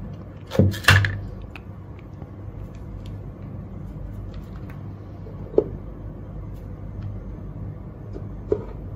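Knocks and clatter of equipment being handled on a workbench about a second in, then a low steady hum with a few light clicks as multimeter test leads are handled.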